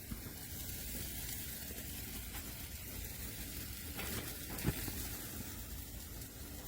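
Steady sizzling hiss on a portable propane grill, with a single sharp click a little past the middle.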